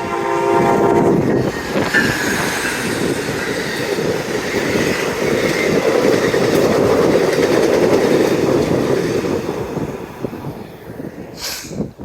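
The horn of an Amtrak Siemens Charger locomotive, a chord of several steady tones, cuts off about a second in. The train then rolls past with the clatter of wheels over the rails, fading out after about ten seconds, and a gust of wind hits the microphone near the end.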